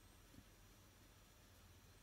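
Near silence: room tone, with one faint soft tick less than half a second in.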